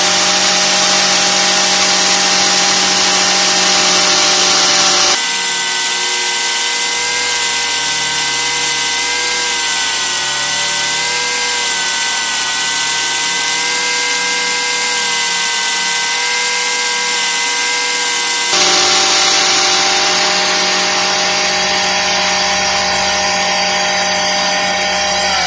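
Homemade electric-motor disc sander running with a steady hum. From about five seconds in, a steel knife blank is pressed against the abrasive disc, adding a grinding hiss as the motor's tone dips slightly under the load. The blank comes off at about eighteen seconds and the sander runs free again.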